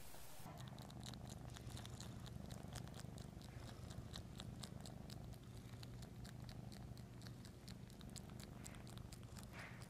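A domestic cat purring steadily, starting about half a second in, with many small irregular clicks from its mouth working at a fleece blanket.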